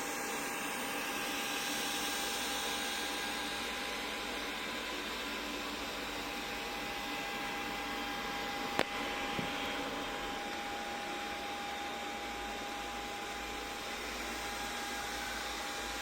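Robot vacuum cleaner running: a steady whirring hiss with a thin, steady whine. One sharp knock about nine seconds in.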